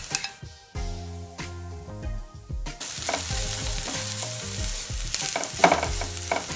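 Onions, spices and chillies sizzling in hot oil in a nonstick frying pan while a wooden spatula stirs and scrapes them, with small knocks against the pan. For about two seconds near the start the sizzle drops out, leaving quiet background music, then the frying and stirring come back.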